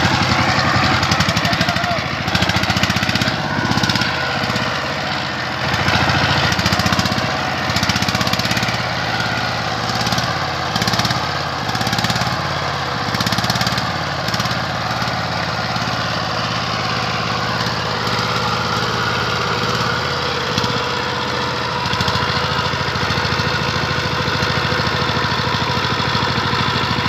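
Single-cylinder diesel engine of a two-wheel power tiller running under heavy load as it drags a loaded trailer through deep mud. Its note rises and dips through the first half, then runs steadily.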